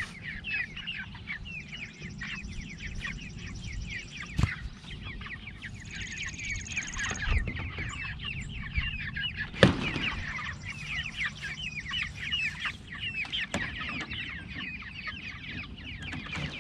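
A flock of four-week-old meat chickens peeping continuously, a dense chatter of short falling chirps. A couple of sharp knocks stand out, the loudest about ten seconds in.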